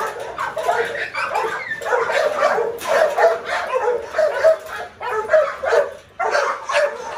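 Pit bull–type dogs barking and yipping almost without pause as they bite and tug at a wooden pole, with a brief lull about six seconds in.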